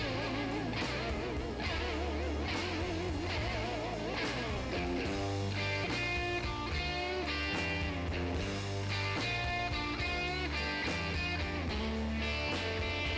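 Background music: an electric-guitar instrumental with a steady bass line. Its guitar notes waver in a wide vibrato for the first few seconds, then settle into held notes.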